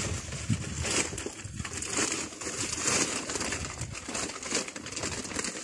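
Bags and sacks rustling and crinkling as a man rummages through them by hand, in uneven bursts throughout.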